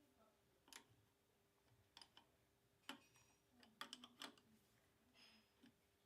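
Sparse, light metallic clicks and taps of tools and parts being handled while a lathe top slide is fitted, a second or so apart, some with a faint high ring, and near silence between them.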